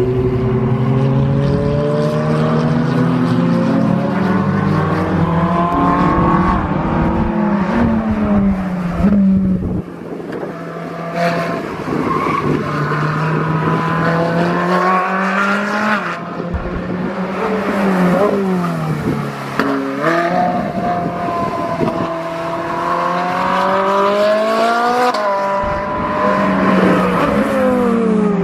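Ferrari sports car engines revving hard as the cars accelerate past, the pitch climbing and then dropping sharply at each upshift, several times over.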